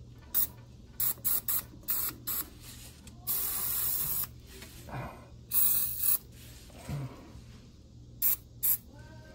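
Aerosol can of PB Blaster penetrating oil spraying onto rusted catalytic-converter flange bolts to loosen them. It goes in a quick series of short spurts, then two longer blasts of about a second each, then two more short spurts near the end.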